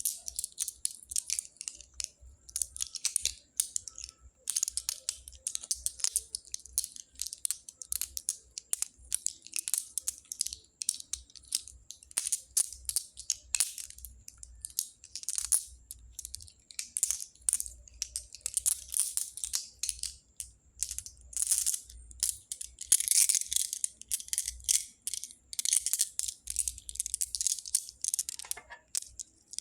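Small pebbles clicking and rattling against each other in a dense, uneven stream, with brief pauses between handfuls.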